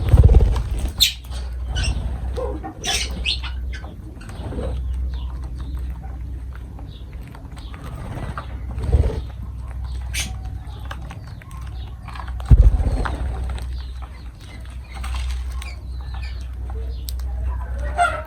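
Lovebirds chirping now and then over a steady low rumble, with a few sudden thumps, the loudest about twelve seconds in.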